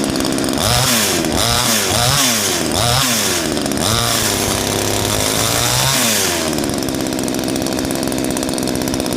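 Gardenline PCH25 two-stroke petrol chainsaw revved with the trigger several times, its pitch rising and falling with each blip. It is then held at high speed, spinning the chain, before dropping back to a steady idle about six and a half seconds in.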